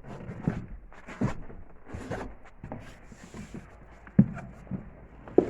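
Footsteps and handling noise: irregular thuds, knocks and clicks, with a sharp knock about four seconds in.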